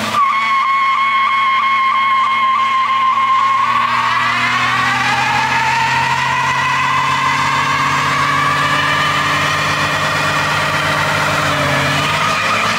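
Burnout by a 1989 Mercury Grand Marquis with a 5.0-litre V8: the rear tyre gives a loud, steady screech while the engine runs steadily underneath. The screech's pitch sags and climbs back midway.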